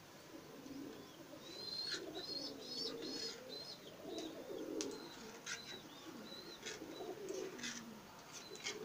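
Doves cooing repeatedly in low, rolling phrases, with small birds giving short, high chirps over them.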